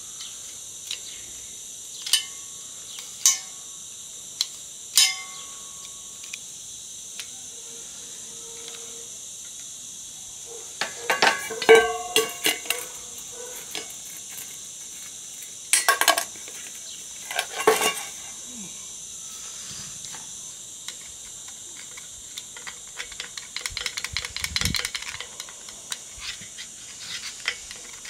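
Metal tools and parts clinking and clattering: a few sharp ringing clinks in the first five seconds, a burst of clatter around twelve seconds, two louder clanks near sixteen and eighteen seconds, then a run of small rattling clicks near the end.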